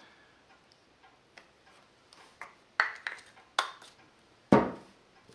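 Light clicks and taps of small metal hub parts and a plastic grease tube being handled and set down on a table, with one louder knock near the end.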